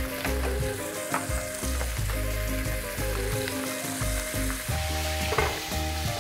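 Mussels and clams sizzling in hot olive oil in a frying pan as they cook open, with a few short clicks of shells knocking together as they are moved about by hand. Light background music plays underneath.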